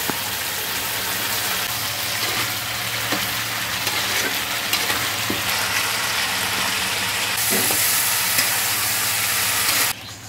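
Vegetables and ground spice paste sizzling in hot oil in a metal bowl, stirred with a metal spatula that scrapes now and then. This is the masala being fried down (kosha) before the water goes in. Near the end the sizzling cuts off suddenly as water is poured in.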